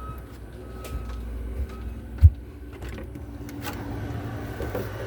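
RV rooftop air conditioner running with a steady hum. A loud dull thump about two seconds in and a few lighter knocks sound over it.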